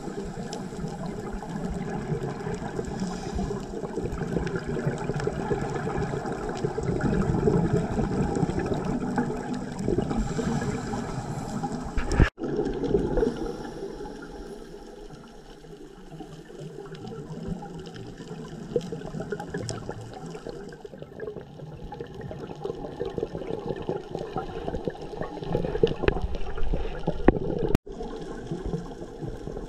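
Underwater sound of a scuba diver's regulator and exhaled bubbles, a gurgling rush of water that swells and fades, twice cut off for an instant.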